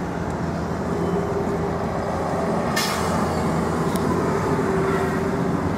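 Street traffic noise: a large vehicle's engine hums steadily, with a short hiss about three seconds in.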